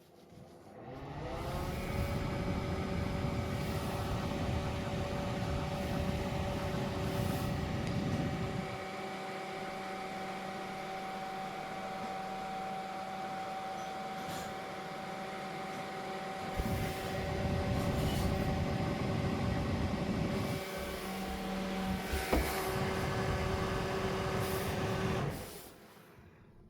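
2019 Lezen electric fan's motor starting up with a rising whine, then running with a steady hum while rushing air noise comes and goes; it stops about a second before the end.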